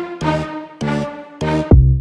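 Upbeat electronic background music: rhythmic, evenly spaced pitched chords, with a heavy kick drum coming in near the end.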